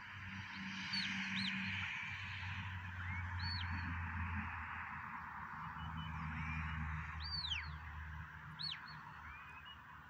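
Wild birds calling over open pasture: several short whistled calls that rise and fall in pitch, scattered through, loudest about seven seconds in and again near the end, over a steady hiss and a low hum.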